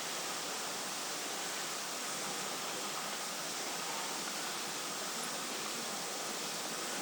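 Steady, even rush of wind at night, a constant hiss with no gusts or breaks.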